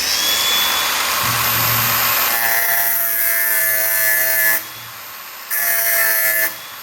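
Angle grinder cutting a slot into a stripped Phillips screw head on an aircraft wing inspection plate, so it can be turned out with a flathead screwdriver. It runs for about four and a half seconds, stops, and runs again for about a second near the end.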